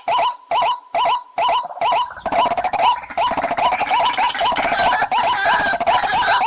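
Waterhen (pani murgi) calling: short hooked notes repeated about three times a second. From about two seconds in, further calls overlap into a denser, continuous chorus.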